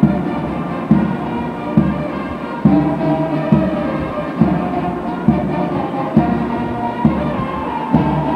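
Brass band playing a march, with a strong bass-drum beat a little more than once a second under sustained brass notes.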